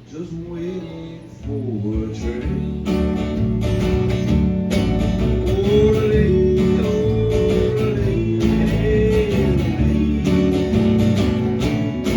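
A country song played on strummed acoustic guitar, with a melody line above it that slides up and down in arcs; the music swells about one and a half seconds in and then runs on at an even level.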